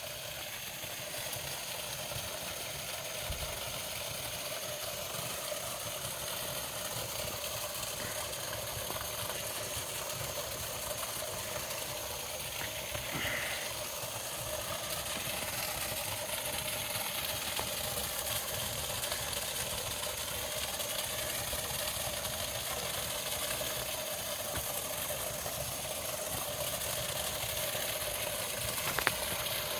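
Steady rush of creek water running at an old stone dam and spillway.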